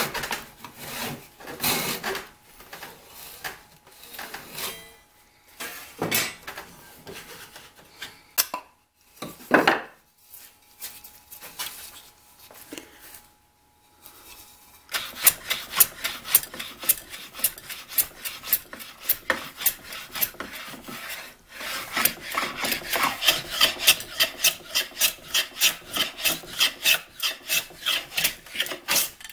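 A Japanese pull saw cutting through a cherry board in quick strokes for the first few seconds. Then a quieter stretch of the wood being handled, with a knock, and from about halfway on a metal hand plane shaving the board's edge in a long run of even, repeated strokes.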